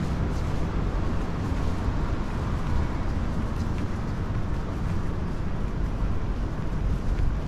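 Steady low rumble of city street ambience, with a few faint ticks.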